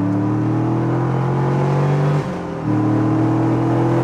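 TVR's V8 engine accelerating hard, its revs climbing steadily in one gear. About two seconds in the sound dips briefly for a manual upshift, then the revs climb again from a lower pitch in the next gear.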